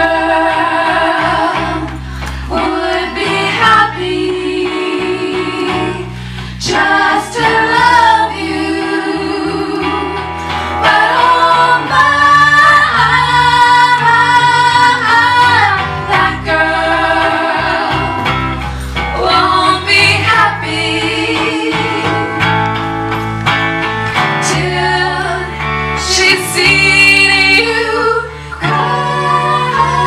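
Female vocal trio singing a slow song in close three-part harmony, with guitar accompaniment underneath.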